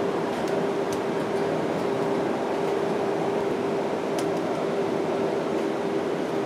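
Cabin noise inside a moving city bus: a steady rumble of engine and road with an even hum from the ventilation, and a couple of faint ticks.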